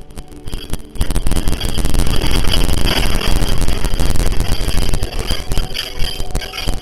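Loud, continuous rattling and clattering over a low rumble, starting suddenly about a second in: things shaking in a strong earthquake.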